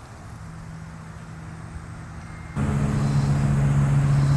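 A vehicle's steady low hum, which jumps abruptly louder about two and a half seconds in and then holds steady.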